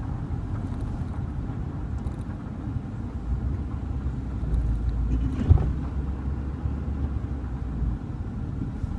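Steady low rumble of engine and road noise inside a Ford F-350 pickup's cab, with a single knock about five and a half seconds in.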